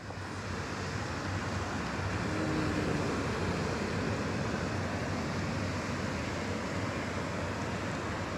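Steady rushing noise of ocean surf and wind.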